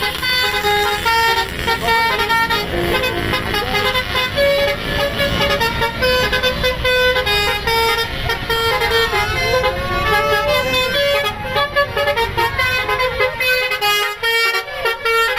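Bus 'telolet' basuri musical horn playing a tune in quick stepped notes, over the rumble of the bus's running engine.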